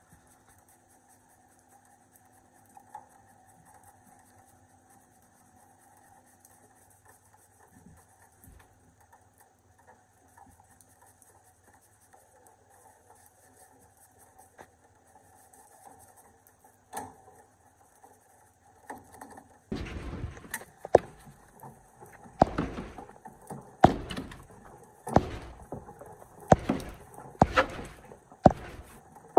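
Bristle paintbrush scrubbing the soapy plastic back cover of an old Panasonic CRT television. Only faint light rubbing at first, then about two-thirds of the way in loud scrubbing strokes begin, roughly one a second.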